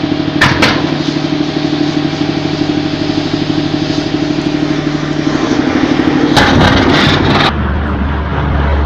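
A vehicle engine runs steadily close by with a fast pulsing beat, and two sharp clicks come about half a second in. Around six and a half seconds a loud burst of rushing noise lasts about a second. After that comes the low, steady drone of a propeller transport plane's engines.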